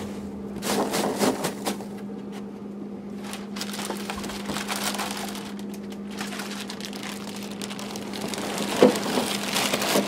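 Clear plastic bag crinkling and rustling as the bagged espresso machine is handled and pressed down into styrofoam packing peanuts, with a few sharper clicks near the end, over a steady low hum.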